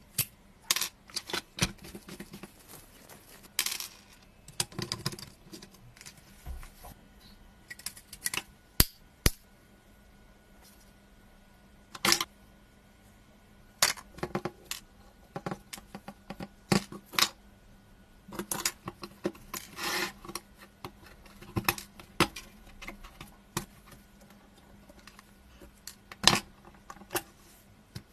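Metal tweezers and small die-cast model car parts clicking, tapping and scraping in irregular, scattered handling sounds, over a faint steady low hum.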